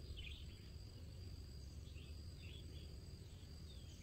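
Faint rural ambience: a steady high insect trill, with a few short falling bird chirps and a low wind rumble underneath.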